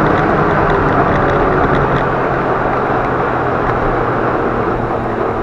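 A car driving at speed: steady engine and road noise with a low, even engine hum.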